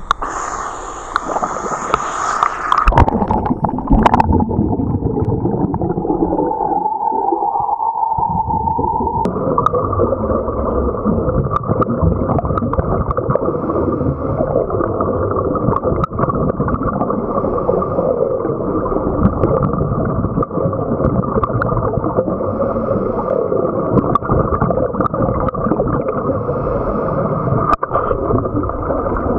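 Underwater sound picked up through a camera's waterproof housing: a steady, muffled rumble and gurgling with faint scattered clicks. The first few seconds, at the surface, are brighter, with water splashing and wind on the housing.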